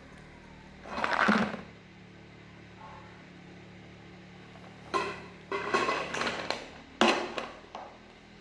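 Shih tzu puppy play-fighting a plush toy: a short scuffle about a second in, then a string of short rough growls and yaps from about five seconds to near the end.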